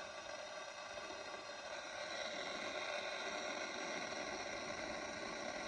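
Cobra 25 LTD Classic CB radio's speaker giving a steady hiss of static, a little louder from about two seconds in.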